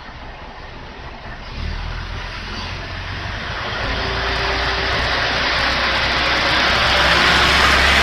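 Watarase Keikoku Railway diesel railcar pulling away from the platform. Its engine opens up about a second and a half in with a deep steady hum, under a rush of running noise that grows louder as the car moves past.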